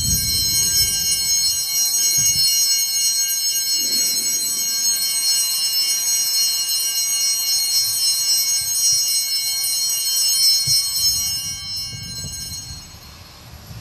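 Altar bells (Sanctus bells) rung continuously at the elevation of the consecrated host, a bright, sustained jangling ring that fades out about a second before the end.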